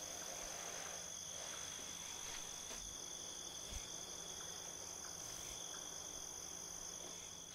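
Crickets trilling steadily, a faint even high-pitched night chorus.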